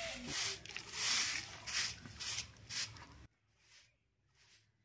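Short straw hand broom sweeping a bare packed-earth yard: brisk swishing strokes, about two a second, turning much quieter and sparser about three seconds in.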